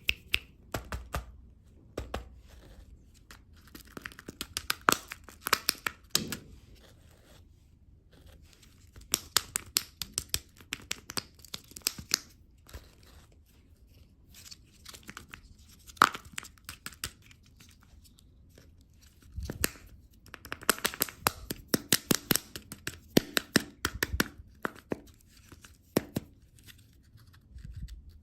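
Plastic candy packaging being torn open and crinkled, in bursts of sharp crackles with short pauses between them.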